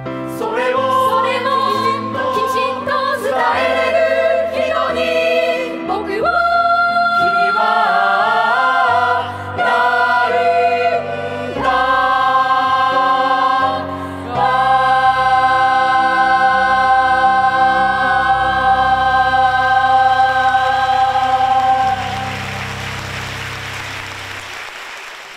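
Young chorus singing a musical-theatre finale over instrumental accompaniment, the chords changing every second or two, then a long held final chord that fades away near the end.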